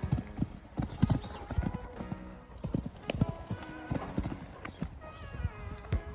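A pony's hooves thudding on a gravel arena at canter, over a grid of small jumps and ground poles, with the irregular beat of take-offs and landings. Background music plays underneath.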